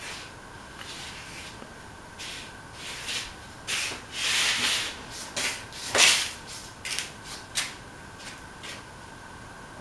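A stainless-steel cooking pan scraping and rubbing as it is worked to spread oil over its base. The scrapes come in a run of short, irregular strokes, loudest in the middle.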